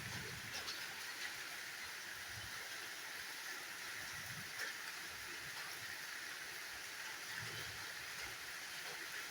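Waterfall: a steady, even rush of falling water, with a few faint low rumbles now and then.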